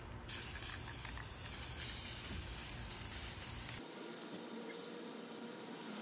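Aerosol can of hammered-finish spray paint hissing in one steady spray for about three and a half seconds, then cutting off.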